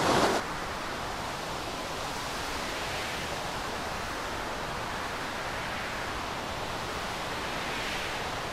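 Steady rushing noise of storm wind and sea, swelling gently now and then, with a louder burst in the first half second.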